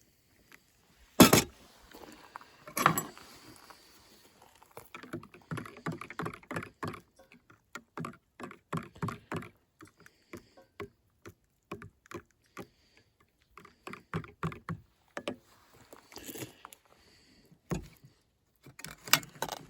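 Clinks, taps and knocks of dishes and utensils being handled, with two loud sharp knocks in the first few seconds and a run of lighter clicks and clatters after.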